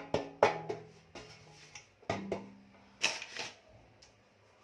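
Background music of sparse plucked guitar: about four single notes struck and left ringing, fading out in the last second.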